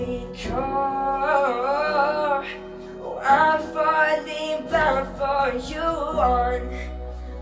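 Male voice singing a slow pop ballad to keyboard accompaniment, in two long phrases with wavering held notes; a low keyboard note sustains alone after the second phrase ends, about six seconds in.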